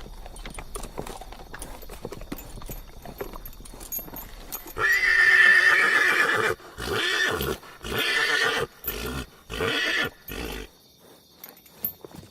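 Horse hooves clip-clopping, then about five seconds in a loud whinny: one long call followed by about four shorter bursts. Hoof steps go on faintly near the end.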